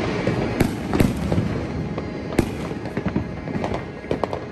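Many fireworks and firecrackers going off at once: a dense, continuous crackle punctuated by sharp bangs, the sharpest about halfway through.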